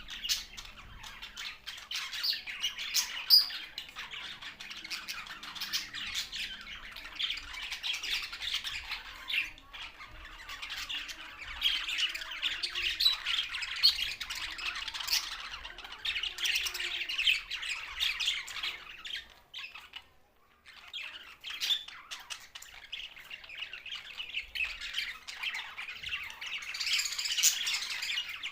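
Several budgerigars chattering continuously in a dense mass of short, high calls, with a brief pause about twenty seconds in.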